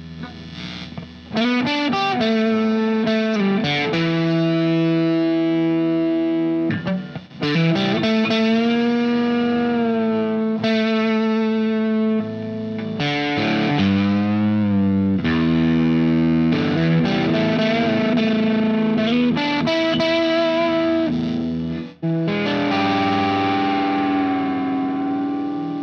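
Strat-style partscaster electric guitar played with distortion, noodling in sustained notes and chords with string bends and vibrato, briefly cut off near the end before ringing on.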